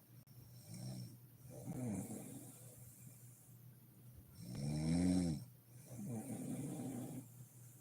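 A sleeping woman snoring, with a rattling snore on each breath. There are two snores, the second, about five seconds in, the louder, with softer breathing between them.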